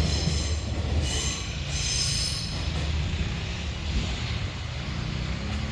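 Container wagons of a freight train rolling past, a steady low rumble of wheels on rail with a high wheel squeal about a second in, the sound slowly fading.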